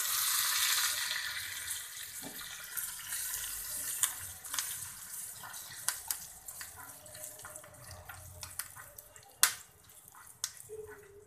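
Curry leaves dropped into hot oil in a small black iron tempering pan, setting off a loud sizzle that starts at once and dies down slowly over several seconds. A metal spoon clicks and scrapes against the pan now and then as the tempering is stirred.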